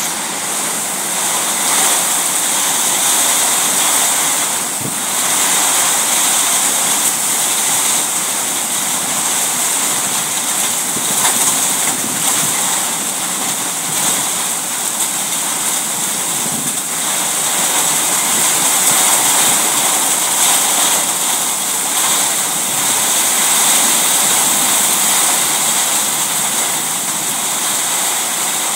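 Heavy rain pouring down in strong wind: a loud, steady hiss.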